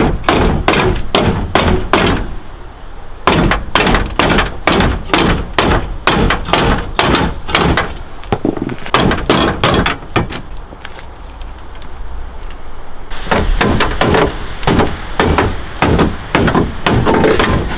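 Sledgehammer blows on the damaged sheet-metal body of a Nissan 240SX, about two to three hard strikes a second, pausing for a few seconds near the middle and then starting again. The metal is being beaten back into place after crash damage.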